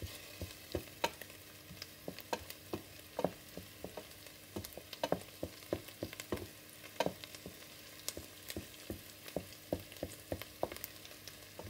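Diced onion frying in oil in a stainless steel pan, sizzling steadily, with frequent irregular sharp taps and scrapes from a wooden spoon stirring against the pan.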